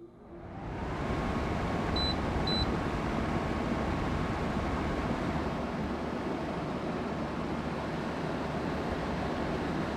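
Window air conditioner starting up after cleaning: its fan spins up to a steady whoosh within about a second, with a steady whine joining in. Two short beeps from its control panel come about two seconds in.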